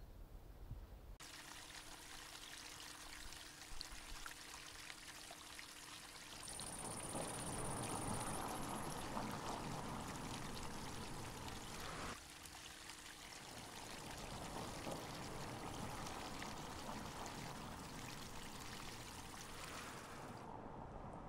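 Water running and trickling in a steady rush that starts abruptly about a second in and grows louder for a stretch in the middle.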